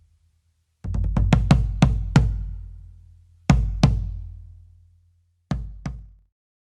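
Drum hits with a deep, booming bass: a quick run of about eight strikes, then two pairs of strikes, each ringing out before the next.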